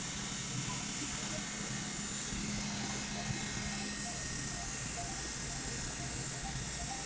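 Marble CNC machining center running with a steady high hiss.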